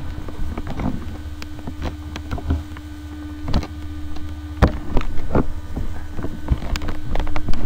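A steady low electrical hum with scattered sharp clicks and knocks, the loudest about four and a half seconds in and again near the end.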